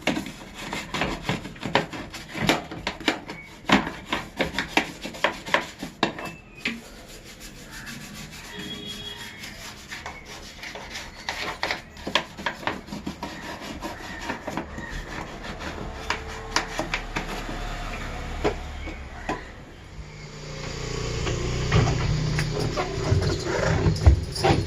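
Hand scrubbing of washing machine parts during cleaning: a run of short rubbing and scraping strokes, turning denser and louder about twenty seconds in.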